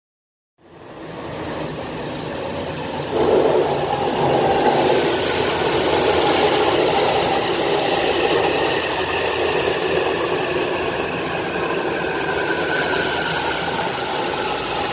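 Toei Mita Line subway train running along the platform, its noise jumping louder about three seconds in. Motor whine tones fall slowly in pitch as the train slows.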